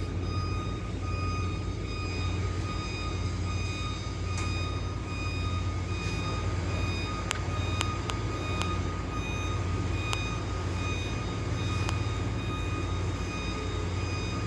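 Truck reversing alarm beeping over and over, over the steady low running of the truck's engine, with a few sharp clicks.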